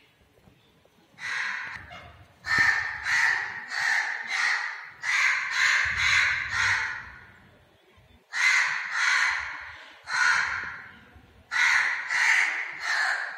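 Crows cawing loudly and repeatedly: harsh calls of about half a second each, in runs of about four with short pauses between runs.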